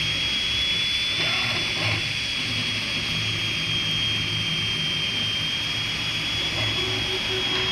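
Anet A8 3D printer running mid-print. Its cooling fans make a steady high whine over a whirring hiss, and below that the stepper motors hum, their tones shifting in short stretches as the axes move.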